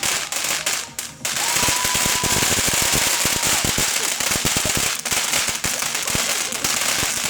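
Fireworks going off: dense rapid crackling over a steady hiss, with a short drop about a second in and a faint steady whistle through the middle.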